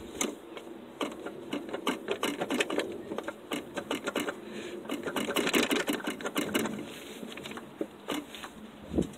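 Quick, irregular metallic clicking and rattling from hand work on a truck's clutch master cylinder as it is worked to get it loose, with a dull knock near the end.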